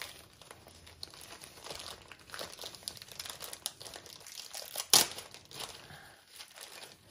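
A diamond painting canvas and its plastic packaging crinkling and rustling as they are handled, with one sharp snap about five seconds in.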